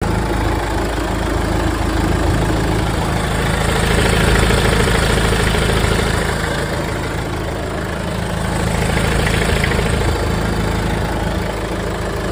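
2011 Kia Sportage 4WD engine idling steadily, heard close up from inside the open engine bay.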